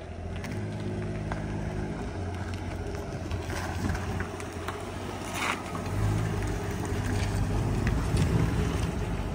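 Holden HQ Kingswood's engine running as the car pulls away and drives slowly past, getting louder about six seconds in as it comes close.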